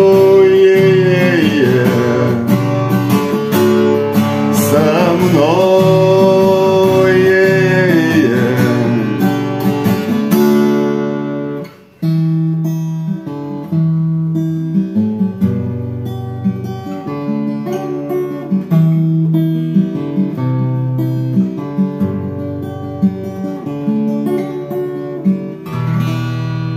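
Acoustic guitar music with no words, closing out a rock ballad. For about the first ten seconds a wordless melody slides up and down over full accompaniment. That part stops suddenly, and the acoustic guitar then plays a picked melody alone, trailing off near the end.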